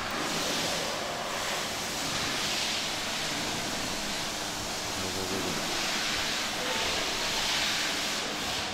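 Steady rushing hiss that slowly swells and fades.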